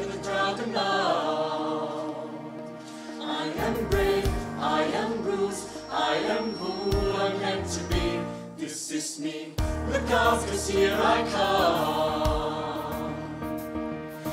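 Mixed choir of men's and women's voices singing a song in harmony.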